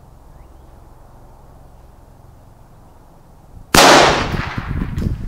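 A single shot from a Marlin Papoose .22 LR semi-automatic rifle firing a CCI Stinger hypervelocity round, a sudden sharp crack about three and a half seconds in, trailing off over about a second.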